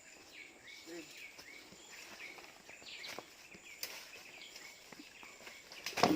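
Tropical forest ambience: short chirps repeating about twice a second over a faint, steady high-pitched insect whine, with one sharp knock near the end.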